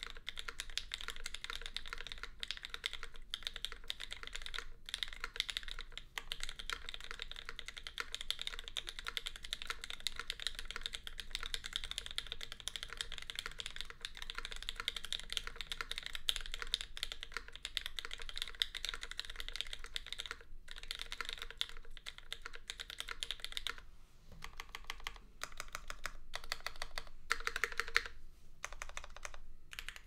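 Fast, continuous typing on a custom mechanical keyboard with lubed, filmed Gateron X linear switches in a full aluminium plate, no foam, and GMK doubleshot ABS keycaps. After about 24 seconds the typing thins into short clusters of keystrokes.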